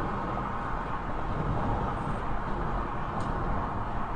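Steady road noise of a car driving along a highway, picked up by a dashcam inside the car.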